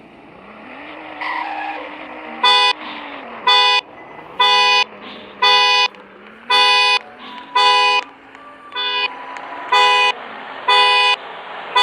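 Car horn blaring in short, even honks about once a second, driven by the 2007 Falcon police interceptor's security alarm going off. The honks begin a couple of seconds in, nine of them in a row.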